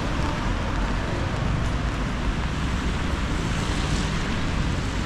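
Rainy city-street ambience: a steady hiss of rain and wet traffic over a low rumble, with no single event standing out.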